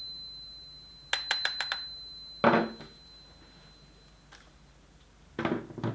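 A metal part struck and ringing with a clear, high, pure tone, a 'tang' that fades away over about four seconds. A quick run of five light taps about a second in sets it ringing again. A heavier knock comes midway and a few more knocks near the end.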